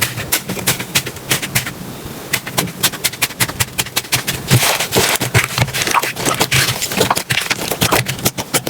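Slime being squeezed and pressed by hand, giving a dense, irregular run of sharp crackling clicks and pops.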